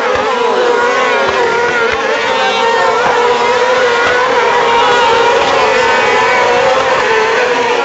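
Engines of several small dirt-track racing buggies running hard together, at high revs that keep wavering up and down as the cars race past.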